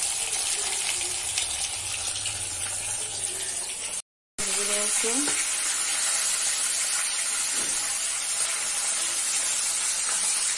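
Fish and pumpkin pieces frying in hot oil in a wok: a steady crackling sizzle. The sound cuts out for a moment about four seconds in, then the sizzling goes on.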